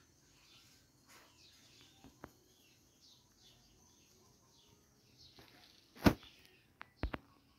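Faint, quick bird chirps in the background, broken by a sharp click about six seconds in and a few softer clicks a second later.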